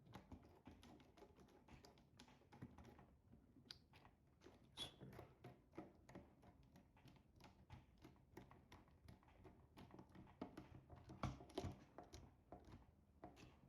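Faint, scattered clicks and taps of electrical wires being handled and twisted together, against near silence.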